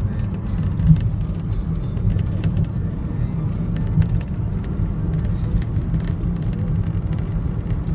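Steady low rumble of a moving vehicle's engine and tyres, heard from inside the cabin while it drives along a road.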